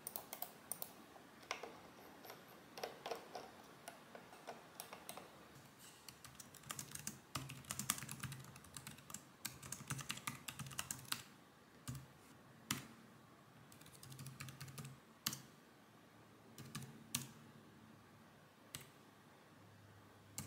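Typing on the low-profile chiclet keys of a Dell KM7120W wireless keyboard, with soft quick keystrokes. It comes in dense runs through the middle, then single number-pad key presses spaced a second or more apart near the end.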